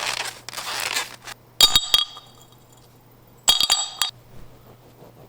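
A rustling noise in the first second, then glass clinking in two short bursts of several sharp, ringing clinks, about two seconds apart.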